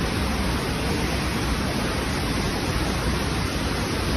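Loud, steady rushing of swollen floodwater, an even roar with no rhythm or breaks.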